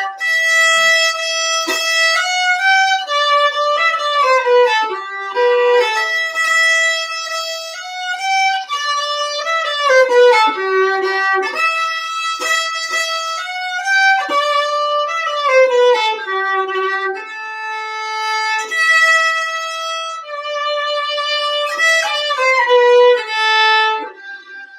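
Solo fiddle playing a tune: a bowed melody of held notes and quick descending runs, with some notes slid into, stopping just at the end.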